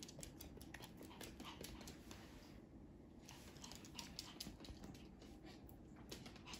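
Faint, irregular light clicks of a Pomeranian's claws on a wooden floor as the dog moves about, with a low room hum underneath.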